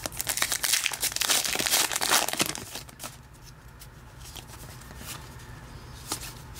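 Hockey card pack wrapper crinkling and tearing as it is opened and handled, for about the first two and a half seconds. After that, softer rustling and light ticks of the trading cards being slid and flipped through by hand.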